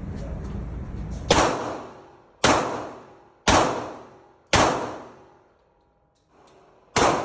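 Gunshots: four shots about a second apart, then a pause of about two and a half seconds and a fifth shot near the end, each dying away over about half a second. A steady low rumble of noise runs before the first shot.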